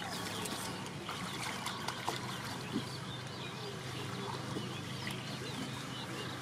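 River water splashing and trickling as men wade and a wet fishing net is hauled in, with many small irregular splashes over a steady low hum.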